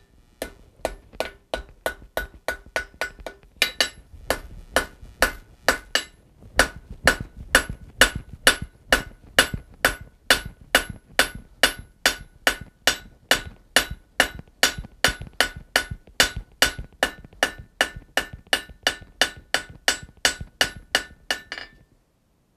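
Hand hammer striking red-hot steel bar on an anvil in a steady run of blows, about two to three a second, each with a ringing anvil note. The smith is hammering a forge weld closed. The blows stop about a second before the end.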